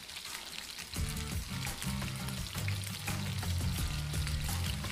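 Batter-coated strips of lamb leg deep-frying in hot oil, a dense crackling sizzle and bubbling. Background music with low notes comes in about a second in.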